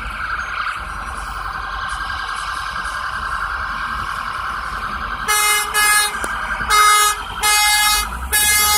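Emergency vehicle siren sounding steadily with a fast warble, then about five short, loud horn blasts in the last three and a half seconds as it pushes through stopped highway traffic.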